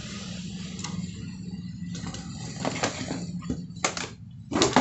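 Hands working on a CRT TV's deflection yoke on the picture-tube neck: rustling handling noise, then a few sharp clicks and knocks, the loudest near the end, over a steady low hum.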